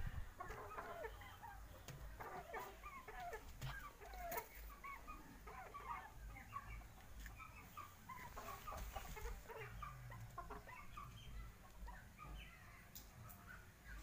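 Chickens clucking softly, with many short calls scattered throughout.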